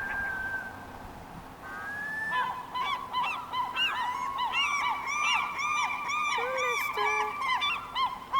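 Gulls calling, at least two at once. A couple of single drawn-out calls come first, then from about two seconds in a fast, overlapping run of short repeated notes, the gulls' laughing long call.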